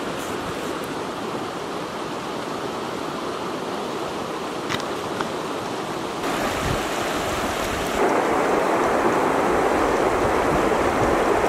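Steady rush of a fast, rocky river running over stones, growing clearly louder about eight seconds in.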